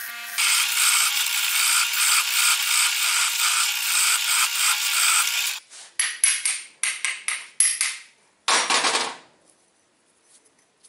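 Bench grinder's stone wheel grinding the tip of a steel bolt to a chamfer, a steady rasping for about five seconds. Then a quick run of about eight hammer taps, followed by a short scrape.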